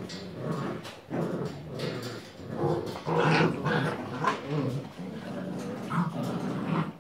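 Grand Basset Griffon Vendéen and Basset Fauve de Bretagne puppies play-fighting, with repeated puppy growls and occasional yips, loudest about three seconds in.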